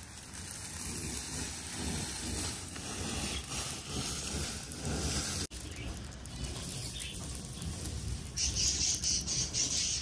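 Farm birds moving about, with rustling and wing flapping. About eight and a half seconds in, a high, fast-pulsing chirping starts and becomes the loudest sound.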